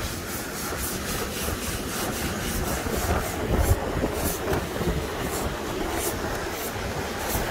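Wind buffeting the microphone over the steady wash of ocean surf, with faint irregular ticks.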